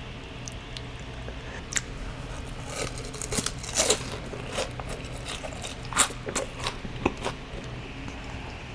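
Boneless fried chicken being bitten and chewed, with irregular crisp crunches; the loudest come about four and six seconds in.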